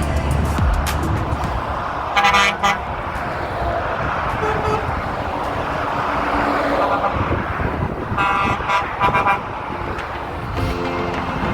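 Trucks passing on a motorway, sounding their horns: a short double blast about two seconds in, then a run of short toots around eight to nine seconds in, over the steady rush of traffic.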